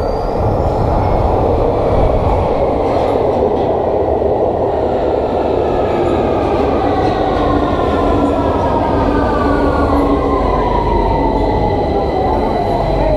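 London Underground Victoria line train pulling into the platform: a loud, steady rumble and roar of wheels on rail, with the whine of its traction motors falling slowly in pitch over the second half as the train brakes.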